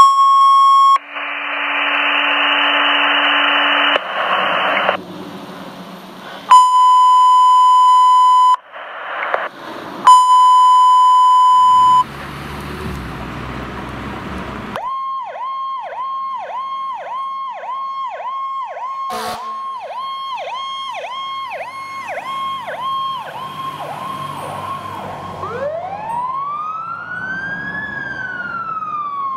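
Radio dispatch audio: steady alert tones and bursts of static over the first twelve seconds. Then a fire apparatus's electronic siren pulses about twice a second, switching about four seconds from the end to a wail that rises and then falls.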